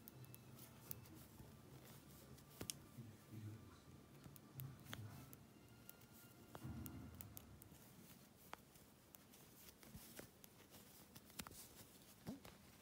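Near silence, with faint irregular clicks of metal knitting needles and soft handling of yarn as stitches are knitted.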